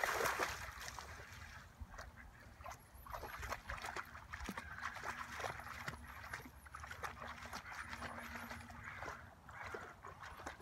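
Dog splashing through shallow pond water: a loud splash at the start settles into softer, repeated sloshing as it wades.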